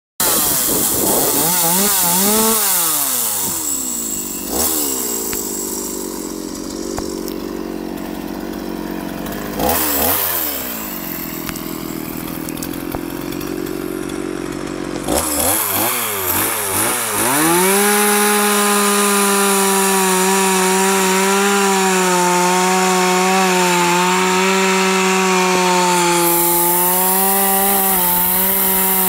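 Kawashima two-stroke chainsaw revving up and dropping back several times through the first half, then held at full throttle with a steady high pitch as the chain cuts through a thick log.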